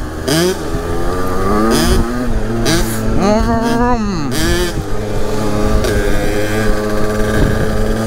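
Two-stroke 50cc dirt bike engine, heard from on board while riding, revving up and down several times, then holding a steady throttle for the last few seconds.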